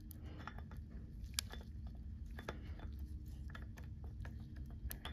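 Faint, irregular crinkling and sticky clicks as a tube of Dow Corning 737 RTV sealant is squeezed and gloved fingers work the sealant into a seal joint, over a low steady hum.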